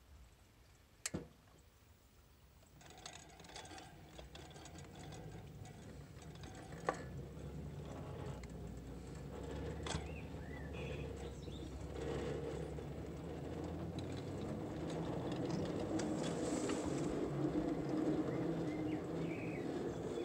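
Miniature 5-inch gauge shunting locomotive pulling away and gathering speed, its drive and wheels on the rails running steadily louder. A sharp click about a second in, and occasional clicks as it runs over the track.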